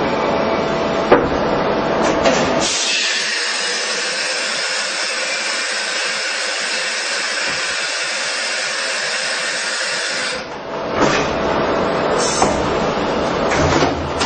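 Heckert CW 1000 horizontal machining centre running through a tool-change cycle, with mechanical running noise and a clack about a second in. From about three seconds in, a steady hiss takes over for some seven seconds. When it stops, the running noise returns with several clunks near the end.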